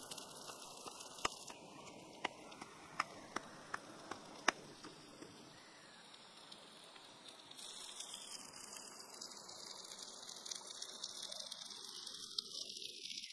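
Shrimp sizzling on a hot stone slab: a steady faint hiss broken by several sharp pops and crackles in the first few seconds, with the hiss and crackle picking up again near the end.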